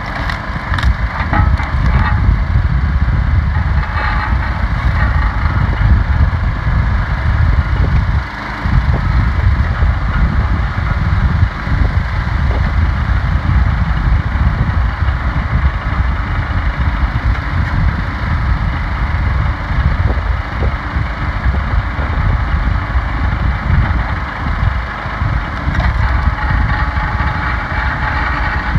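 Log splitter's engine running steadily throughout, with a few short knocks of wood being split and handled.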